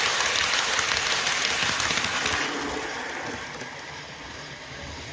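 Model train running past close by, its wheels rattling on the track rails as a steady hiss that fades after about two and a half seconds as it draws away round the curve.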